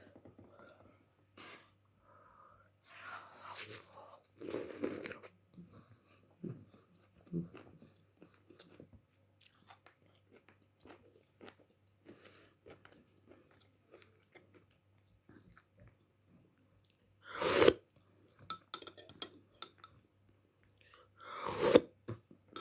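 A person chewing food close to the microphone, with many small wet mouth clicks and three louder, short noises about five, seventeen and twenty-one seconds in.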